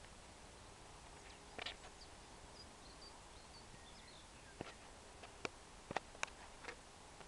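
Faint outdoor background hiss with a few faint, short high chirps near the middle and several sharp clicks, mostly in the second half.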